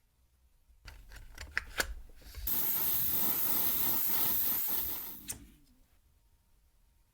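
A few clicks and taps, then a spray hiss that runs steadily for about two and a half seconds and fades off, with one more click just after it stops.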